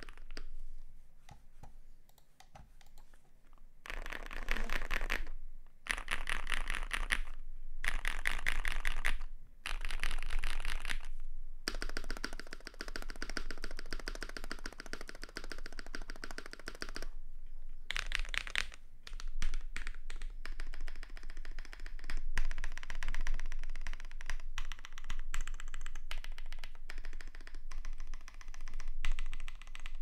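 Custom Tofu60 60% mechanical keyboard with an aluminium plate, lubed Techno Violet switches, lubed TX stabilisers and PBT keycaps, typed on in fast runs of keystrokes with short pauses. In the second half, single keys, among them the spacebar, are pressed one at a time with clear gaps.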